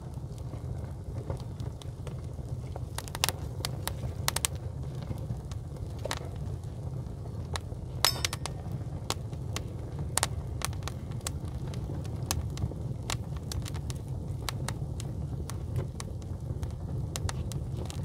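A fire of dry twigs crackling in an open fireplace, with irregular sharp pops scattered through it, the loudest about eight seconds in, over a steady low rumble.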